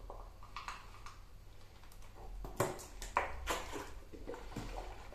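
Soft mouth and breath noises with a few short clicks and puffs, the clearest about halfway through, as a person gulps down a dry scoop of creatine powder.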